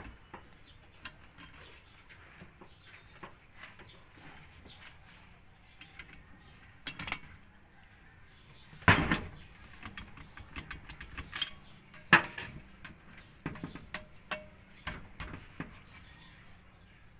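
Scattered metallic clicks and clinks of a wrench tightening the cylinder head bolts on a Suzuki F6A engine, with two louder clacks about nine and twelve seconds in.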